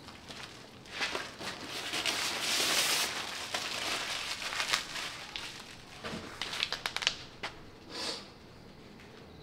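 Crinkling, rustling handling noise, loudest about two seconds in, followed by scattered sharp clicks and taps, with footsteps on a concrete floor.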